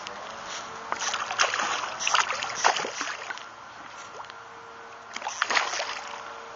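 Hooked carp thrashing at the surface close to the bank, splashing in two bouts: a longer one of about two seconds starting a second in, and a shorter one of about a second near the end.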